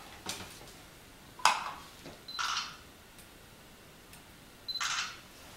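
Two digital cameras on a book scanner firing their shutters, foot-pedal triggered: twice, about two and a half seconds apart, each a short high tone followed by a rush of shutter noise. A sharp click about one and a half seconds in comes from the book and glass plate being handled between shots.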